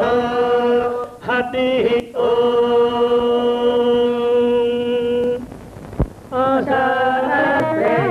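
Devotional chanting by one voice, with long held notes. It breaks off for a moment just before six seconds, where there is a soft click, then comes back with a wavering, melodic line.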